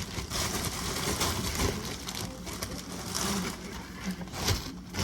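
Rustling and light handling noises as sliced deli turkey is taken from its plastic bag and laid on sandwich bread, with a sharper tap or knock about four and a half seconds in, over a steady low hum.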